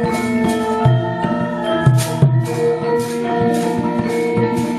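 Javanese gamelan music: ringing metallophone notes held over low drum beats, with a steady run of sharp rattling strikes about three times a second.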